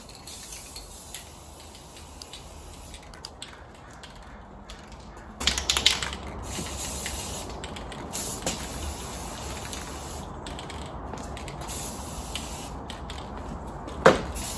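Aerosol spray can hissing in bursts as clear synthetic varnish is sprayed onto a metal exhaust bracket. The spray is faint at first, gets louder from about five seconds in, and has short pauses. A sharp click comes near the end.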